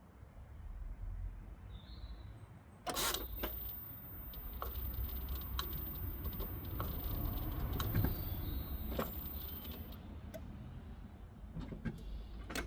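Clicks and handling noises in a car, with a faint high whine coming on suddenly about three seconds in.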